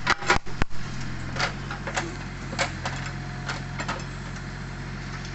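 Excavator engine running steadily, with a quick run of sharp clanks in the first second and scattered lighter knocks after.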